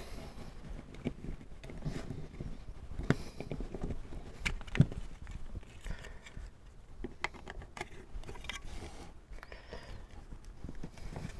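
Irregular small clicks and taps of wire terminals being seated into a plastic 30-amp RV plug housing by hand, over soft handling noise. The sharpest clicks come about three and five seconds in.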